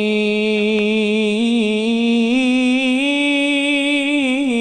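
Solo young male voice singing one long drawn-out note of an Arabic sholawat into a microphone, unaccompanied, the pitch wavering in melismatic ornaments, stepping up about two seconds in and falling back near the end.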